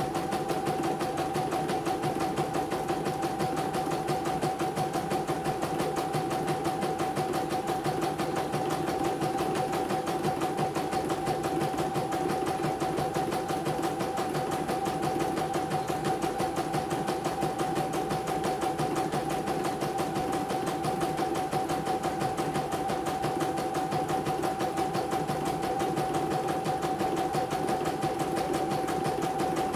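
CNY portable computerized embroidery machine stitching a design: rapid, even needle strokes over a steady motor hum. It is running smoothly on a test stitch after being repaired from a total jam.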